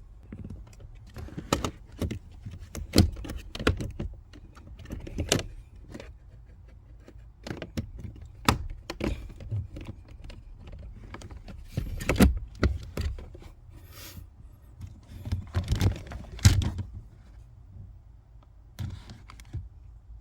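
Irregular clicks, taps and knocks of plastic car interior trim being handled and pressed back into its clips, with a few short scrapes.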